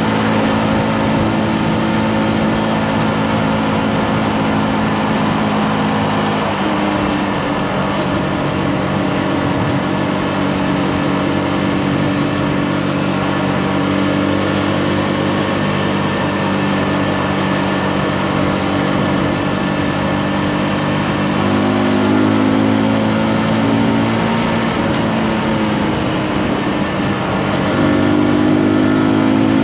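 Zontes G155 motorcycle's single-cylinder four-stroke engine running under way with the throttle held fairly steady, over a constant rush of wind and road noise. The engine note steps up a little about a quarter of the way in, then swells and falls back twice in the last third as the throttle is opened and eased.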